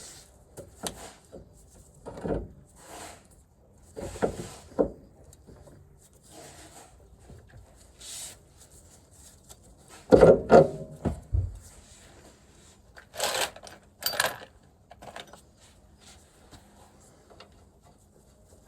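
Irregular knocks, clunks and scrapes of hand tools and metal suspension parts being handled during reassembly of a car's front hub. The loudest knocks come about ten seconds in, with another cluster a few seconds later.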